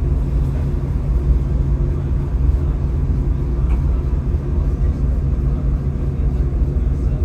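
Diesel train running with a steady, loud low rumble and a constant engine hum.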